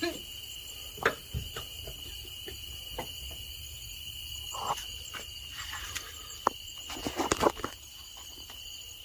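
A steady high-pitched drone, like night insects, with scattered short clicks and knocks, several bunched together about seven seconds in.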